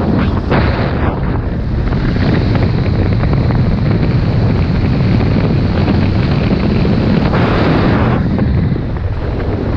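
Wind buffeting the microphone of a snowboarder's action camera as a steady loud rumble, with the hiss of the snowboard sliding through powder snow swelling and fading with the turns.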